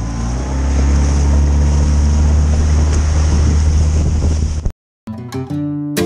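Outboard motor of a small inflatable boat running up to speed, its pitch rising a little in the first second, with wind and water rushing. About five seconds in it cuts off abruptly and acoustic guitar music starts.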